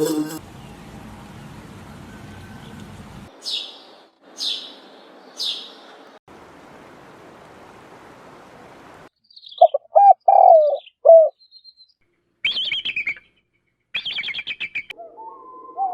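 Birds calling. First come three short, high chirps, each falling in pitch, about a second apart. A few lower calls follow about ten seconds in, then two brief buzzy trills near the end.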